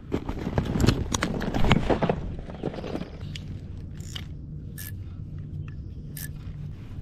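Fishing gear being handled aboard a kayak: rustling, scraping and knocking for the first three seconds, then quieter, with three sharp clicks in the last few seconds.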